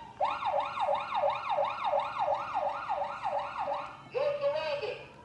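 Electronic siren of a Road Rippers Rush and Rescue toy police vehicle playing through its speaker: a fast yelp sweeping up and down about three times a second, changing near the end to a shorter, lower wavering tone.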